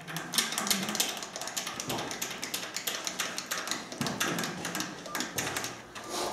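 Quick, irregular metallic clicks and taps from hand work on top of a 4Ч8 diesel engine, which is not yet being cranked.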